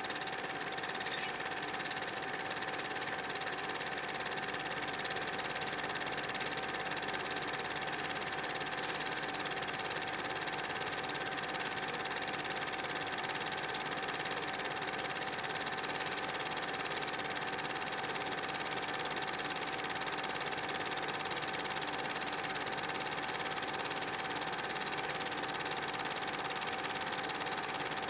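Steady running noise of a Super 8 film projector: an even mechanical whirr with a constant thin whine, unchanging throughout.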